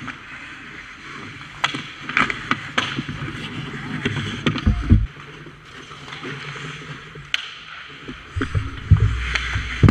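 Ice hockey play right at the goal: skate blades scraping and carving on the ice, several sharp stick and puck clacks in the first few seconds, and heavy low thumps as the goalie and a player bump against the net, the biggest near the middle and again near the end.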